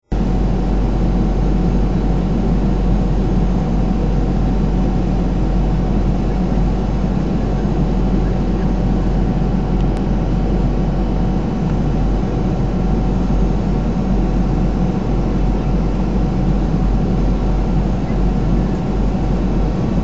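Steady in-flight cabin noise of a Boeing 737-500, heard inside the cabin at a window seat over the wing: the drone of its CFM56 turbofan engines and the rush of air past the fuselage, with a deep hum and a few faint steady tones.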